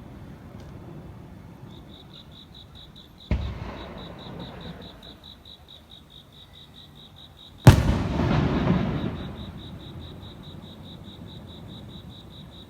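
Fireworks shells bursting overhead: a duller bang about a third of the way in, then a sharp, loud report a little past halfway that rumbles on for a second or so. Between the bursts an insect chirps in fast, even pulses.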